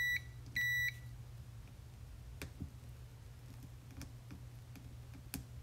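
Digital multimeter's continuity beeper giving two short beeps of one steady high tone in the first second, signalling an unbroken connection as the probes touch the duplexer board's pins. A few faint clicks follow.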